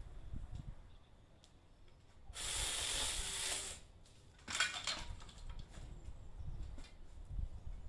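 Cordless mini chainsaw cutting into a cherry branch, one hissing burst of about a second and a half, followed about a second later by a shorter crackle of snapping twigs.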